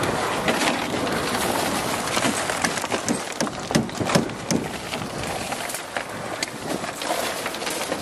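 Construction work on a concrete roof deck: a steady noisy background with frequent short knocks and scrapes of tools, rebar and wheelbarrow.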